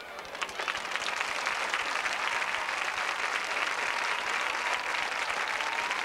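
Stadium crowd applauding in the bleachers as a marching band's number ends. The clapping swells in right at the start and holds steady.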